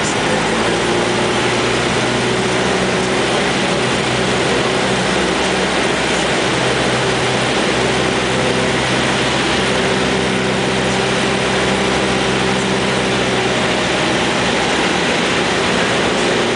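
Cessna 172's piston engine and propeller droning steadily, heard inside the cabin in flight, with a steady hiss over it.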